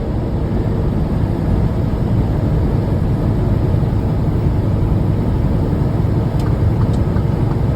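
Semi-truck's diesel engine and tyre noise heard from inside the moving cab: a steady low drone while the loaded truck rolls along at speed.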